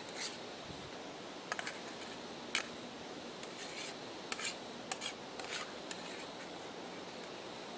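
A utensil scraping food from cookware: a handful of short, separate scrapes and clinks, likely the last of the food being scooped out of the pot, over a steady faint hiss.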